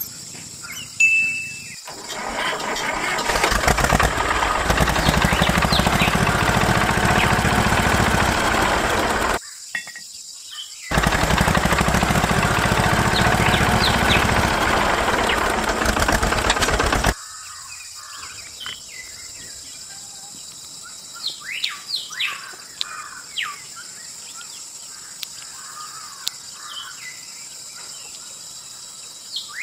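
Loud engine noise, most likely a miniature tractor's motor, builds up about two seconds in. It stops briefly about nine seconds in, runs again and cuts off suddenly about seventeen seconds in. Birds chirp in the background before and after it.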